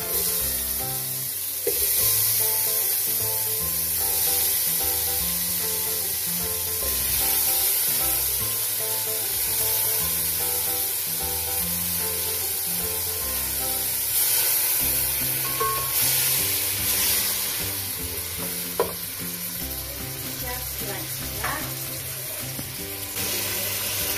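Freshly added butternut squash cubes sizzling in hot fat in an aluminium pot with onions and carrots, stirred with a wooden spoon, with a couple of sharp knocks near the end. A background music track plays beneath.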